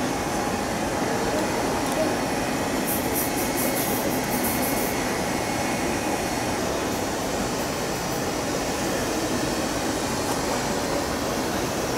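Steady murmur of a crowd in a large hall: many indistinct voices blended into background noise. A brief run of faint high ticks comes about three seconds in.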